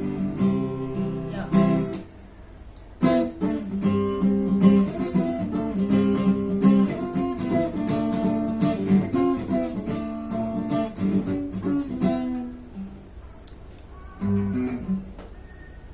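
Acoustic guitar strummed in chords, breaking off for about a second near the start and then playing on before stopping; a short strum follows near the end.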